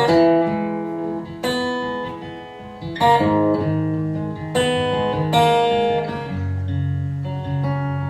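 Acoustic guitar strumming chords between sung verses, each strum ringing out, about five strong strums, then softer held chords near the end.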